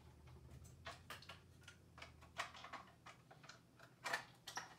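Faint, irregular small clicks and light taps, more than a dozen, the loudest a little before the end, over a low steady hum.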